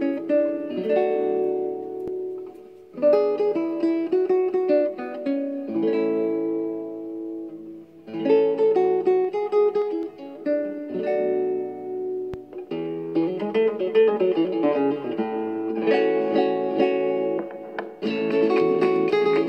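Spanish guitar playing a flamenco-style instrumental: plucked melodic phrases that ring out and fade between runs, with a passage of quick strums about two-thirds of the way through.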